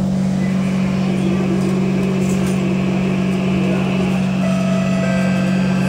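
Cabin noise of a Kawasaki C151 MRT train with Toshiba PMSM traction motors running between stations: a steady low rumble, with thin steady whining tones coming in about four and a half seconds in.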